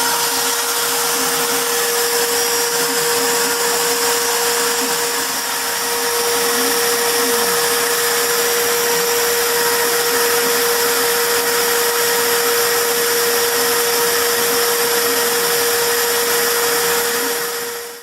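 CNC router spindle running at steady high speed while engraving a wooden sign, a constant whine over loud even machine noise, with faint wavering lower tones as the cut varies. It cuts off abruptly at the very end.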